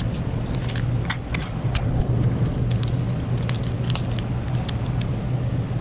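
Crumpled painter's masking tape crinkling and crackling in the hands in scattered short bursts, over a steady low mechanical hum.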